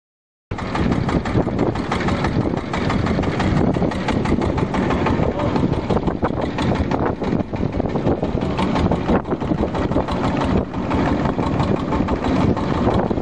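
A motorboat's engine running steadily and loudly; it cuts in suddenly about half a second in, after silence.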